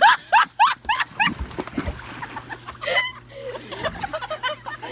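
An animal giving a quick run of short, high-pitched yelps that rise and fall in pitch, about four a second at first, with more calls later on.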